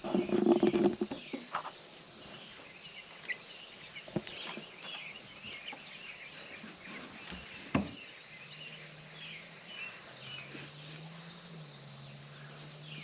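Young chickens peeping and chirping softly. Two sharp taps, about four and eight seconds in, which the owner takes for the chicks knocking on the coop door.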